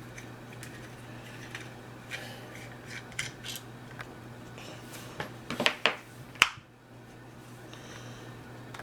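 Small metallic clicks and scrapes of a flathead screwdriver and steel parts being handled while the single grip screw is worked out of a revolver, with a cluster of clicks about five and a half seconds in and one sharp click just after.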